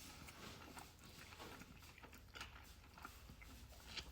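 Faint chewing of a sushi roll: soft, scattered mouth clicks, with one slightly sharper click near the end.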